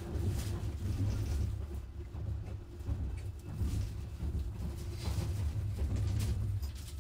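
Wuppertal Schwebebahn suspended monorail car running along its overhead rail, heard from inside the cabin: a steady low rumble with a constant hum above it.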